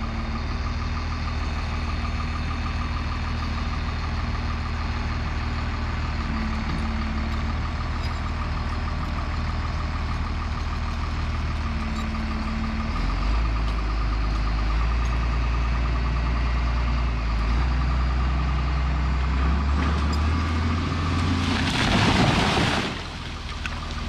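Heavy equipment's diesel engine running steadily, then working harder with a deeper, heavier rumble from about halfway through as it pulls on the chained tree. Near the end a large tree crashes down: a loud rush of breaking branches and impact lasting about a second and a half.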